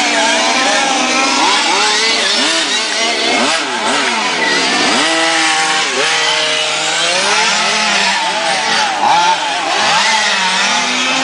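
Several radio-controlled model cars racing, their small high-revving motors rising and falling in pitch and overlapping one another as they accelerate and brake around the track.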